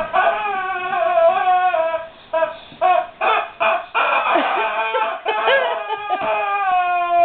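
Squeaky rubber duck toy squeezed over and over. It gives long squeals that slide slightly down in pitch, broken up in the middle by a run of short squeaks.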